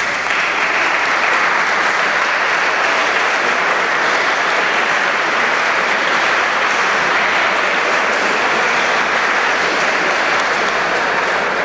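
Audience applauding: a long, steady round of clapping that comes in sharply at the start.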